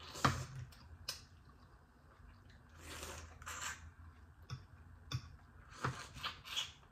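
Eating sounds at a table: a fork clicking against a plate several times, the loudest click just after the start, with soft chewing noises between.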